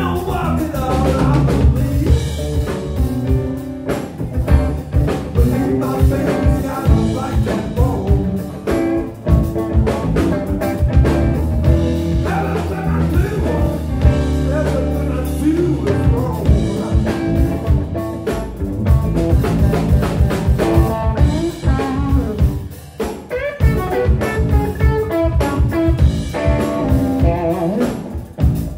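Live blues band playing a blues number: electric guitar, electric bass and drum kit.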